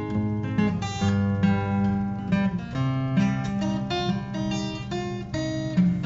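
Acoustic guitar music with strummed chords.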